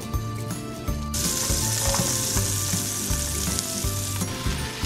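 Chopped garlic frying in melted butter in a frying pan: a sizzle that starts suddenly about a second in and eases off near the end.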